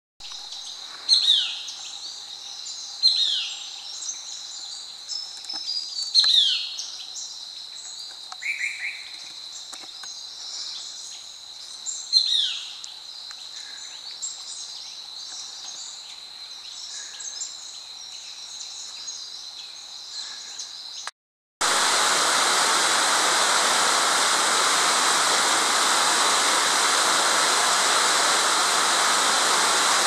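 Birds calling: loud, sharp calls that drop in pitch, repeated every few seconds, over smaller chirps and a steady high tone. After a brief gap about two-thirds of the way through, the sound cuts to the steady rush of a fast-flowing river.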